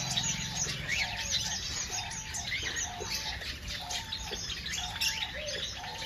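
A crowded aviary of small cage birds (finches, lovebirds and parakeets) chirping and twittering together. A lower call repeats about once a second through the high chatter.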